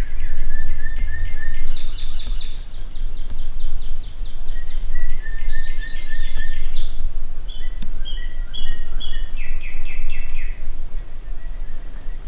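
Songbirds singing repeated phrases of quick, high notes and short trills, one phrase after another, over a steady low rumble.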